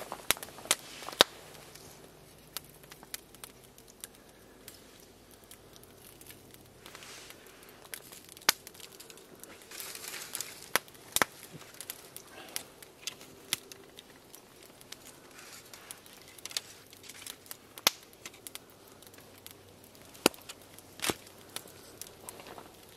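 Wood campfire crackling, with irregular sharp pops, a few of them loud. Now and then aluminium foil crinkles as hands work over it.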